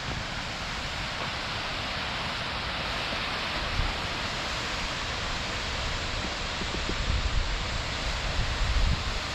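Steady rush of river water running through rapids, with gusts of wind buffeting the microphone near the end.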